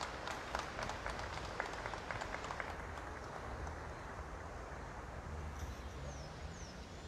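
Scattered hand-clapping from a crowd, dying away about three seconds in, over a steady low rumble.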